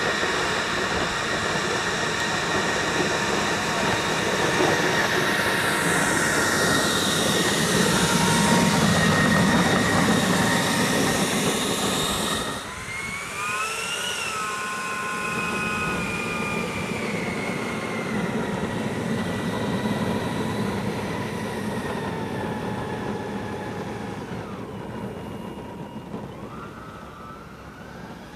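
Electric ducted fan (Schübeler impeller) of a large RC M-346 model jet running with a high whine over a rushing noise, its pitch rising and falling as the throttle changes. The sound breaks off abruptly about twelve seconds in; a quieter fan whine then spools up and gradually winds down.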